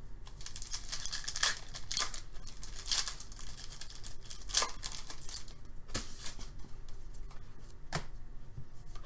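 Foil wrapper of a 2018-19 Upper Deck SP Authentic hockey card pack being crinkled and torn open by hand: a dense run of crackles and tearing over the first few seconds, then a few separate sharp crackles.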